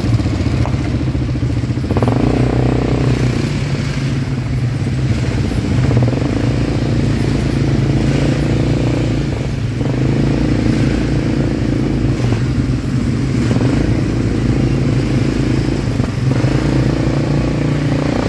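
ATV engine running as it is ridden, its note shifting a few times as the throttle changes.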